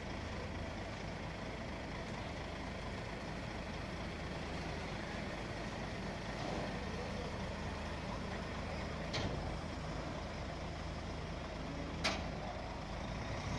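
Hyundai dump truck's diesel engine running steadily while its raised dump bed lowers, with two sharp knocks, a faint one past the middle and a louder one near the end.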